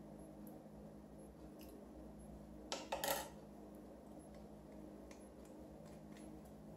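A small measuring spoon clinking against a glass mixing bowl in a quick cluster of sharp clicks about three seconds in, with a few faint ticks later, over a low steady room hum.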